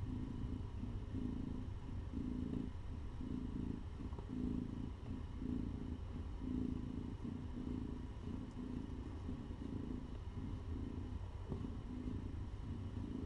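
Mother cat purring steadily while she is stroked on the head and nursing her newborn kittens, the purr pulsing in even waves less than a second apart.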